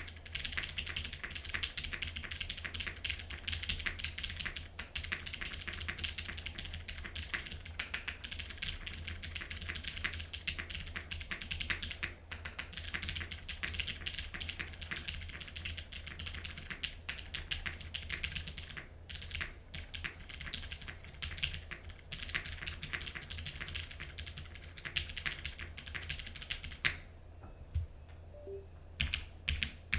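Continuous fast typing on a custom mechanical keyboard: a Perry Jinsoul case with an aluminium plate, Cherry MX Black linear switches heavily lubed with Krytox 205g0, and GMK KA1953 keycaps. The keystrokes thin out to a few isolated presses near the end, over a faint steady low hum.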